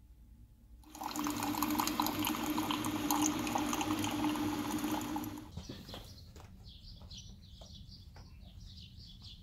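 Keurig single-serve coffee maker brewing: a steady hum with coffee pouring into a ceramic mug. It starts about a second in and stops abruptly after about four and a half seconds.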